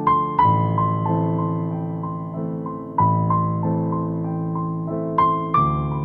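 Soft background piano music: a slow melody of single notes over sustained chords, with new chords struck about half a second, three seconds and five seconds in.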